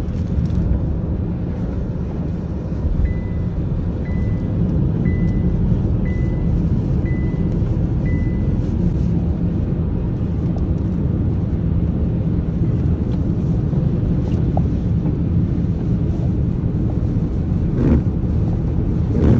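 Steady low rumble of road, wind and rain noise inside a car driving through hurricane rain and wind. A few seconds in, a short high beep repeats about once a second, six times.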